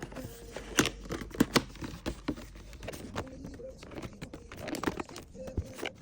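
Blind box packaging being handled and torn open: a run of crinkling, tearing and sharp clicks, loudest between about one and two seconds in.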